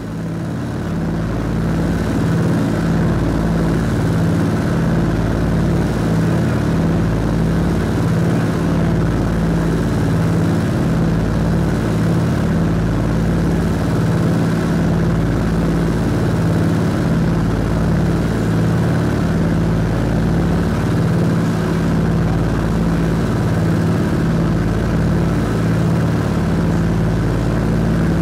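A Scottish Aviation Twin Pioneer's two Alvis Leonides radial piston engines and propellers heard from inside the cabin in flight: a steady, even drone.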